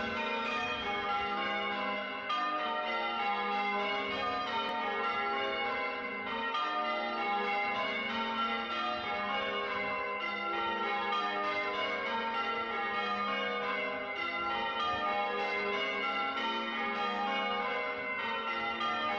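Church bells rung in changes: a steady, unbroken peal of overlapping bell strokes.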